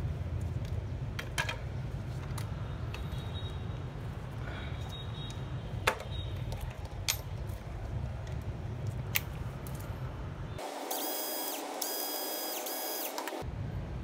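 Small plastic and metal parts of a cordless drill being handled and set down: a few sharp clicks and light knocks over a steady low rumble. Near the end, for about three seconds, the rumble gives way to a buzzing hiss with steady high tones.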